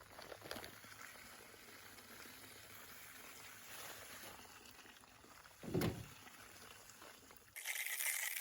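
Faint sloshing of a wet concrete sand-mix in a bucket, with one short louder scrape or thump near the middle. Near the end the sound changes abruptly to a brighter hiss with small squeaks.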